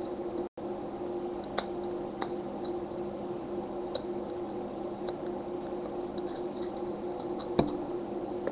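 Light plastic clicks and taps from the casing of a small device's top screen being handled and pried apart, the loudest a sharp click near the end, over a steady hum. The sound cuts out completely for a moment about half a second in.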